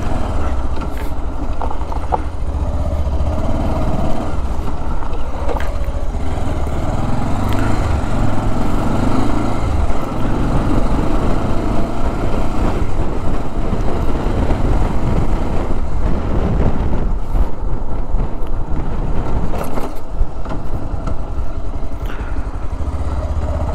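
Motorcycle engine running under way at low speed on a gravel track, its note rising and falling with the throttle, with steady wind rumble on the microphone.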